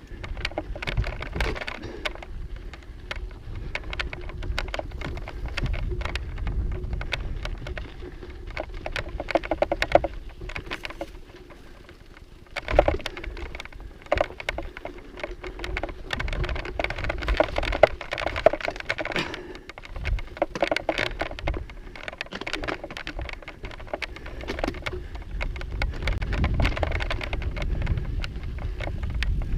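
A mountain bike riding over a rocky dirt trail: the tyres crunch on gravel and stones, and the bike rattles in a dense run of sharp clicks that come in uneven surges, with a low rumble under it.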